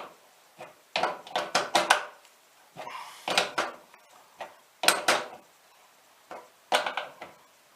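A new tap head-and-body being screwed into a tap and tightened: several short clusters of sharp clicks and knocks with quiet gaps between them.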